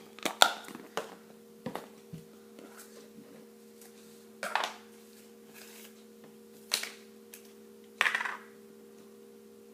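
Scattered clicks, taps and crinkles of small toys and packaging being handled and opened, five or six separate bursts, over a steady low hum.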